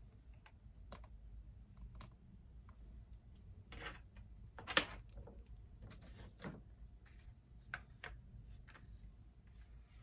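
Computer keyboard typing: irregular, scattered keystrokes with a few louder clacks, the loudest a little before the middle, over a low steady hum.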